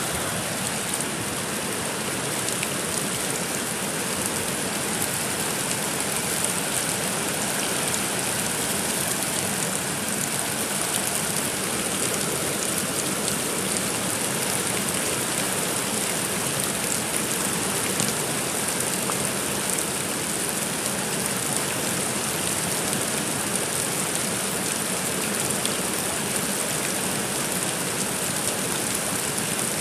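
Steady heavy rain, an even, unbroken hiss of downpour with no thunder.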